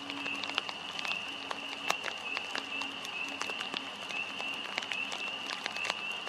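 Irregular patter of raindrops, sharp scattered ticks, over a steady high-pitched trilling in the background.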